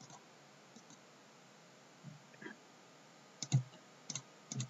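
Computer mouse clicks: a few short, sharp clicks in quick pairs in the second half, around three and a half, four and four and a half seconds in, over faint room tone.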